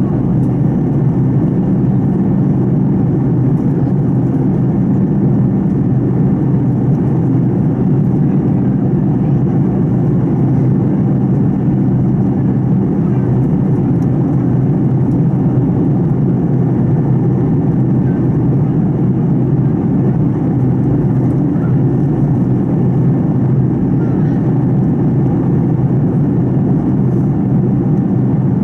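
Steady cabin noise of a Fokker 70 in cruise, heard right beside its rear-mounted Rolls-Royce Tay turbofan: a constant low drone of engine and airflow.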